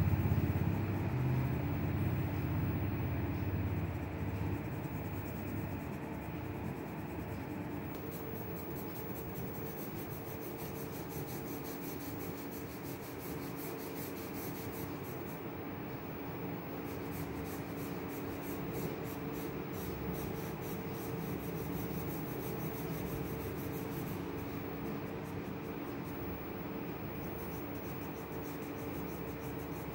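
Graphite pencil scratching on sketchbook paper in rapid shading strokes, over a steady low hum. A low rumble sounds in the first few seconds.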